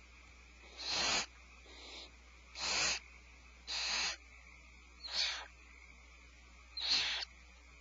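Barn owls giving harsh, hissing screech calls: five loud ones, each under half a second and spaced a second or two apart, with a fainter one between the first two. These are the owls' food-begging calls at feeding time.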